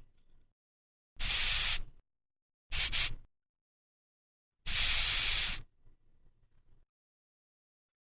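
Aerosol paint spray can sprayed in three hissing bursts. The first lasts about half a second and comes about a second in, a short one follows near three seconds, and a longer spray of about a second comes near the middle.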